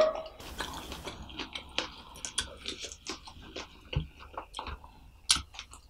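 Close-miked chewing of a fried samosa: many small wet mouth clicks and smacks. A brief hiss about half a second in and a soft low thump about four seconds in.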